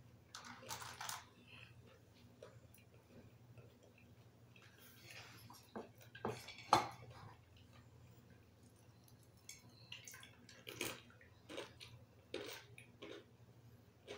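Scattered light clinks and clicks of dishes and food being handled at a table, the sharpest a little under seven seconds in, over a low steady hum.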